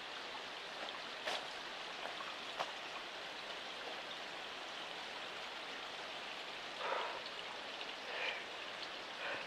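Water trickling and dripping down a wet rock face, a steady splashing hiss. A few sharp ticks come in the first few seconds, and there are two brief louder splashes or knocks near the end.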